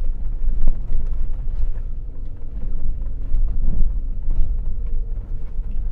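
Car driving slowly over a rough dirt road, heard inside the cabin: a steady low rumble of tyres and suspension with occasional knocks as the car jolts over bumps.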